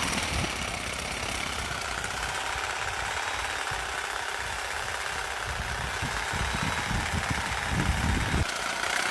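Corded Bosch reciprocating saw running steadily, shaking a container of cream clamped to its blade with a quick clamp to churn it into butter. A low knocking grows stronger near the end.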